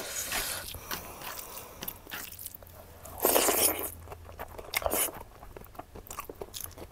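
Close-miked crunching and chewing of crisp radish pickle with churpi, with a loud crunchy bite about three seconds in and another near five seconds.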